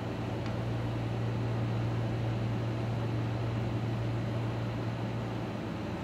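A steady low hum under an even hiss: constant background noise from a running machine in the room, with no speech.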